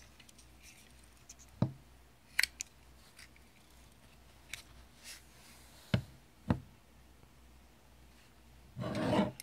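Bates 88P hand-grip stapler's metal body clacking as it is worked and swung open by hand: several sharp separate clacks, then a brief rasping rattle near the end.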